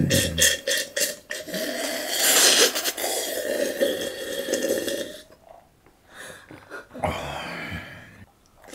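A person gulping down watermelon juice from a glass, with close, wet swallowing sounds for about five seconds. Then a short pause and one more brief mouth or throat sound near the end.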